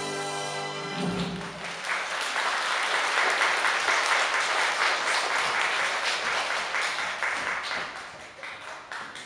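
Music ends on a held chord about a second in. An audience then breaks into applause, which thins out near the end.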